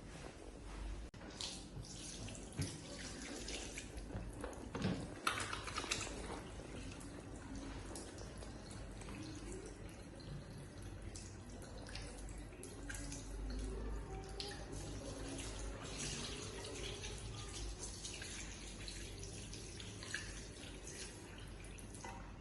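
Tap water running into a sink, with splashing as hands are washed under it.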